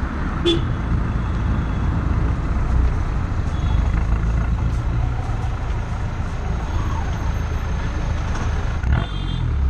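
Exhaust of a Ford Aspire TDCi turbodiesel with a partial free-flow exhaust and extension tip, burbling steadily at the tailpipe while the car drives, over road and tyre noise. A brief click about half a second in and another near the end.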